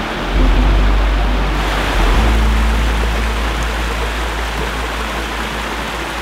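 Rushing water of a rocky mountain creek and small waterfall cascading over rocks, a steady hiss that brightens a little under two seconds in. Under it sit deep sustained bass tones of background music, which swell about half a second in and again at about two seconds.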